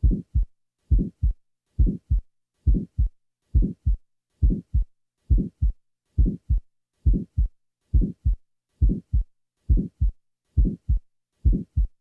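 Auscultated heart sounds at a steady rate of about 70 beats a minute. Each beat is a first heart sound running into a short early systolic murmur, followed by a crisp second heart sound. The murmur begins with S1 and dies away by mid-systole, as is characteristic of a small muscular ventricular septal defect.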